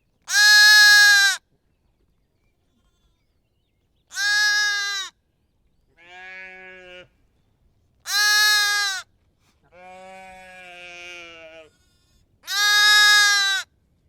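Sheep bleating: six separate baas with silence between them. Four are loud and higher-pitched, each about a second long. Two are quieter and lower, the second of these drawn out for about two seconds.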